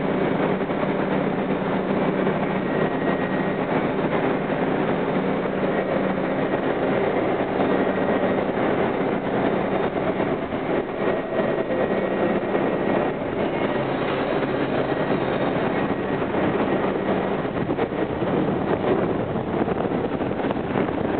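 R62A subway train moving along the track through the station, with a steady rumble of steel wheels on rail that holds throughout.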